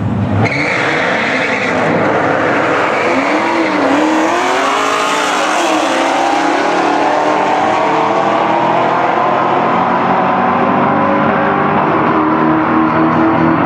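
Dodge Challenger Hellcat and Cadillac CTS-V V8 engines launching side by side at full throttle, about half a second in. The engine notes climb and dip through the gear changes over the first few seconds, then run on steadily as the cars pull away down the strip.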